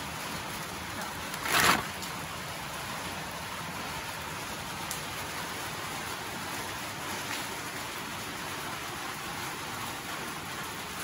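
Steady hiss of rain, with one brief loud rustle about one and a half seconds in as a bunch of fresh coriander is handled.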